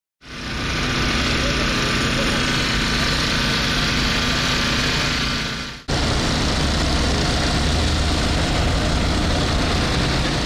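Steady engine running at a road-crash rescue scene, with voices of emergency workers in the background. The sound breaks off sharply about six seconds in and picks up again at once.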